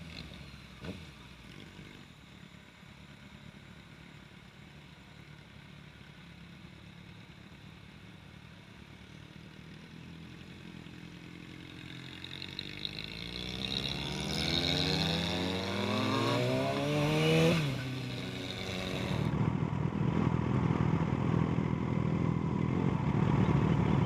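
Sport motorcycle running quietly at first, then accelerating hard, its engine pitch climbing steadily for several seconds before dropping off, followed by steady engine and wind noise.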